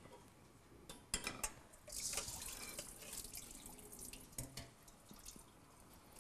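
Water running briefly, with a few light clicks and knocks around it.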